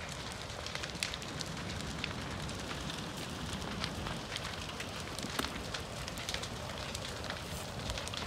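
Building burning in a wildfire: flames crackling with frequent, irregular sharp snaps and pops over a steady low rumble.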